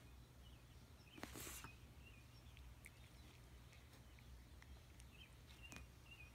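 Near silence with a steady low hum. About a second in, a brief rustle as the cat rolls against clothes on the carpet, and a few faint high chirps scattered through.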